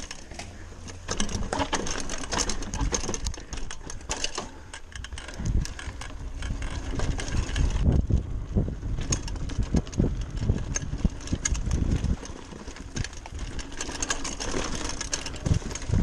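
Giant Talon 3 29er hardtail mountain bike clattering over rough trail, a dense run of rattles and clicks from the bike. In the middle, as it picks up speed on a smoother dirt stretch, wind rumbles on the microphone, and the clatter comes back near the end.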